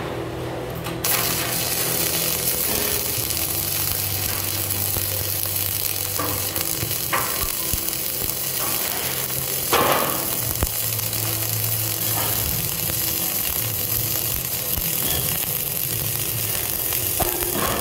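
Self-shielded flux-core welding arc on 5/64-inch Lincoln NR-305 wire, struck about a second in and then sizzling steadily as the bead is run on a steel column splice. A steady low hum sits underneath, with a few louder pops along the way.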